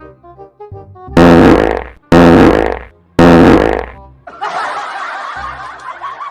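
A fart sound effect played three times in a row, each blast about a second long and loud, a second apart, over faint background music. A steadier, hissy sound with a wavering pitch follows for the last two seconds.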